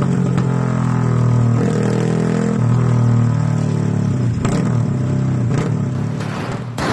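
Yamaha Y15ZR (MX King) 150 cc single-cylinder four-stroke engine idling through an aftermarket non-standard exhaust, with a deep uneven idle from its retarded 'horse timing' tune. The note wavers a little, and a couple of sharp exhaust pops come in the second half.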